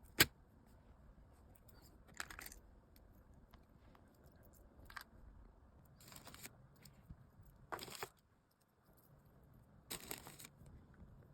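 Small items and plastic packaging being handled: a sharp click just after the start, then a handful of short, scattered crinkles and rustles.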